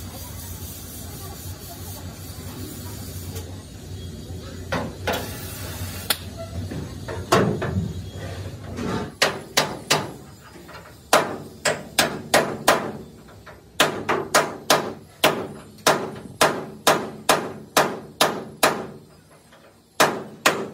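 Hammer striking the steel frame of an excavator cabin: a few scattered blows over a steady low hum, then from about halfway a fast run of sharp, ringing metal blows, about three a second in short groups, stopping just before the end.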